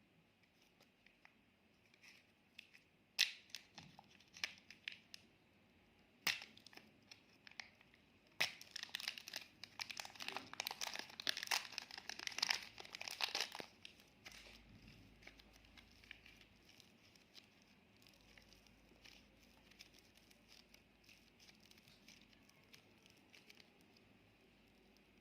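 Clear slime handled by hand: a few sharp clicks, then several seconds of dense, sticky crackling and popping, fading to faint soft pattering.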